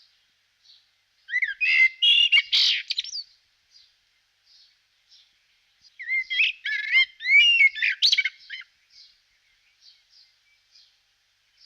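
Small songbirds calling: a faint short chirp repeating about twice a second, with two loud bursts of rapid, varied warbling song about two seconds long, the first starting just over a second in and the second around six seconds in.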